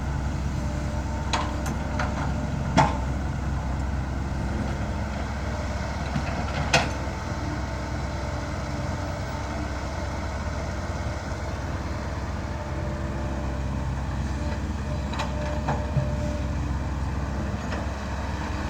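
Dump truck engine running steadily while the truck drives along a dirt track, with a few sharp knocks and rattles now and then.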